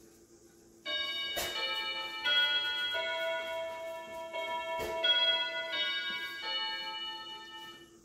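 Electronic doorbell chime playing a melody of about eight ringing notes, beginning about a second in and dying away near the end. Two sharp clicks land among the notes.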